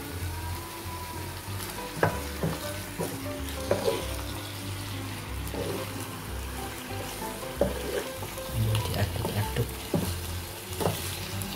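Squid frying and sizzling in a pan, stirred with a wooden spatula that knocks against the pan several times.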